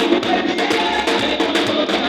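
Live band music: keyboard chords over a drum kit keeping a steady beat, with a thin low end.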